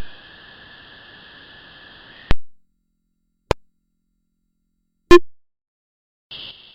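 Synthetic electronic sound: a sharp click opens a steady high hiss that cuts off with another click after about two seconds. Two more separate clicks follow, and a short burst of high hiss comes near the end.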